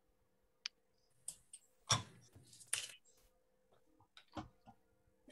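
Faint scattered clicks and soft knocks, about eight in all, the loudest two about two and three seconds in, over a faint steady hum.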